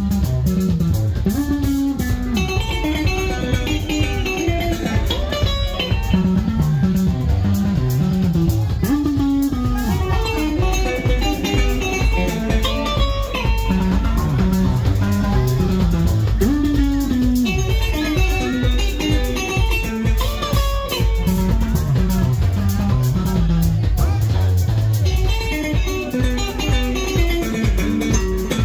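Live sungura band music: a busy, melodic electric bass line runs under quick, interlocking electric guitar runs, over a steady beat.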